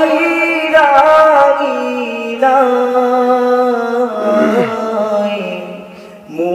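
Man singing a Bengali Islamic gojol into a microphone, drawing out long held notes between the lines of the song. The singing fades near the end before the next phrase begins.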